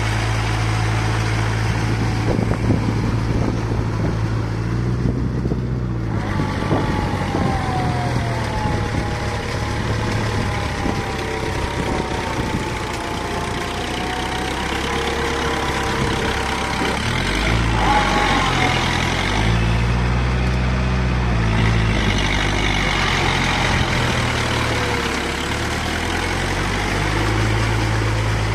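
Kubota MU4501 tractor's four-cylinder diesel engine running steadily while hauling cage wheels and a leveller through flooded paddy mud; the engine note shifts lower and back again around the middle.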